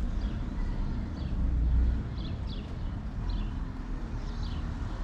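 Outdoor ambience: a steady low rumble with faint, short chirps of small birds scattered through it.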